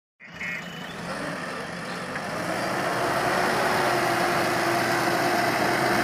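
JCB backhoe loader's diesel engine working, growing louder over the first few seconds and then holding a steady hum as the loaded front bucket is lifted. A brief high beep sounds near the start.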